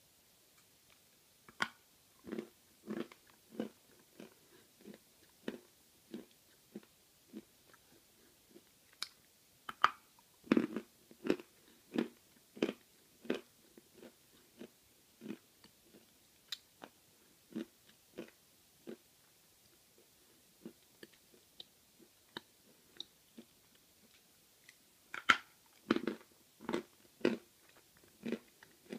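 A person chewing a lump of Belgorod edible chalk: short, crunchy chews at about three every two seconds. Fresh louder bites come about ten seconds in and again near the end, with a lull in between.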